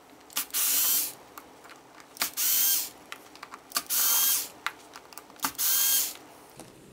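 Ryobi Tech4 cordless screwdriver running in four short bursts, each about half a second long and a second and a half apart, backing out the screws of an RC car's gearbox cover.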